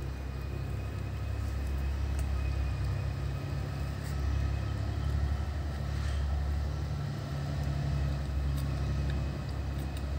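Steady low rumble of vehicle engines in background traffic, with a faint thin whine above it.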